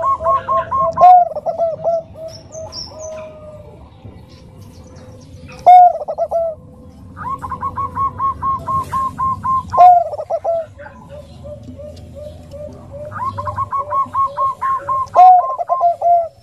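Zebra dove of the Bangkok perkutut song strain singing its cooing song. Three times it gives a rapid string of short, even coos that ends in a louder note, with one more loud coo between the first and second strings.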